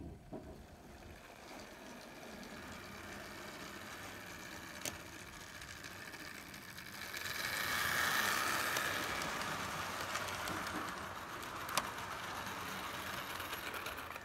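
Model train running past on the layout's track: a steady rolling whirr of wheels and motor that grows louder about seven seconds in as the coaches pass close. Two single sharp clicks, one near the middle and one near the end.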